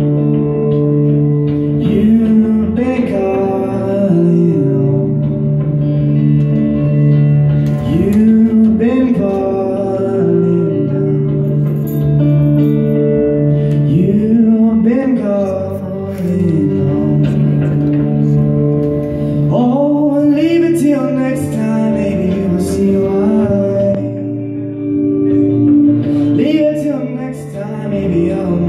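A man singing over a guitar that plays sustained chords. The sung phrases rise and fall and come in short lines separated by guitar-only gaps.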